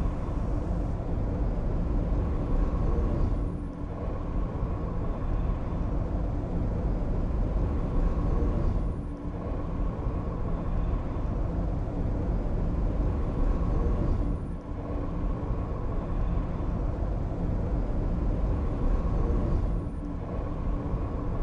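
Steady low rumbling noise with a faint steady hum, dipping briefly about every five seconds.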